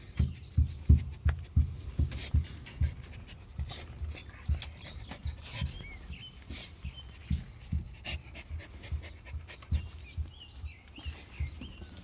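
Jindo puppies panting close by, a quick regular rhythm of about three breaths a second that is loudest in the first couple of seconds. A few faint, short high chirps come through in the middle and near the end.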